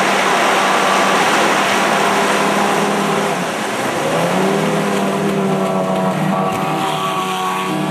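Racing power dinghy's outboard motor running at high revs through river rapids, over the rush of whitewater and spray. About three and a half seconds in, the engine note drops briefly, then climbs back up.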